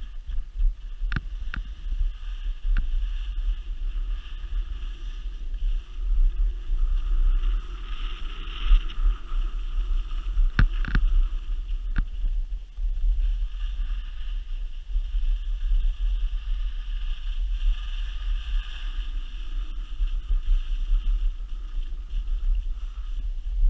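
Continuous hiss and scrape of sliding down a groomed ski slope on packed snow, swelling and easing with the turns, over a low wind rumble on the camera microphone. A few sharp clicks or knocks come near the start and around the middle.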